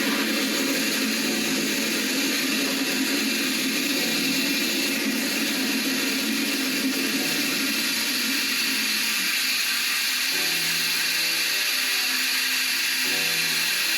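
Handheld plasma cutter at 30 amps with its arc hissing steadily as it traces letters into 16-gauge sheet steel. About ten seconds in, a few steady low tones join the hiss.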